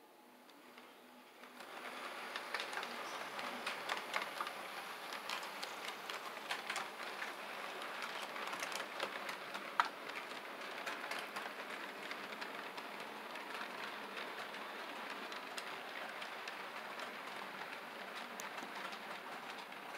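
HO scale model freight train rolling past on its track: a steady rushing clatter of small wheels on the rails with a dense patter of little clicks. It starts up about a second and a half in, then holds steady.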